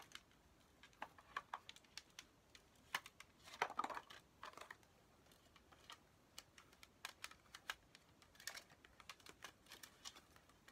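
Faint, scattered clicks and taps of a plastic DVD/CD case and its paper inserts being handled, with a short rustle about four seconds in.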